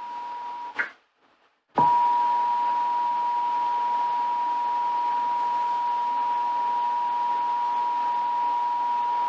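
Emergency Alert System attention signal: the steady two-tone 853 and 960 Hz alert tone. It cuts off about a second in with a short higher blip and a moment of silence, then starts again louder and holds steady.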